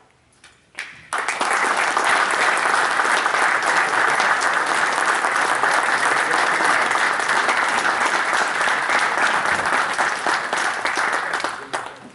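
Audience applauding: a few scattered claps, then steady applause from many hands for about ten seconds, dying away near the end.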